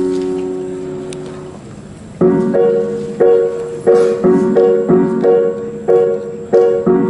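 Piano music: a held chord dies away over the first two seconds, then a steady pattern of repeated notes and chords begins about two seconds in.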